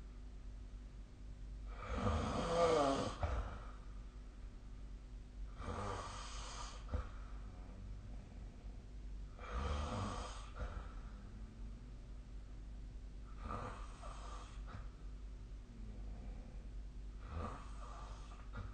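A sleeping person snoring: five snores about four seconds apart, each lasting about a second, the first the loudest.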